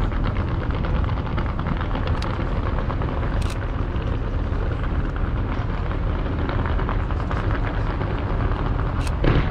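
Aerial fireworks going off: a dense, continuous crackle of many small reports over a low rumble, with a few sharper cracks and a louder bang near the end.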